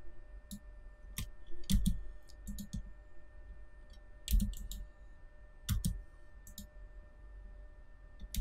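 Computer mouse clicks and keyboard key presses: a dozen or so separate sharp clicks, several in quick pairs, with gaps of up to a second or more between them.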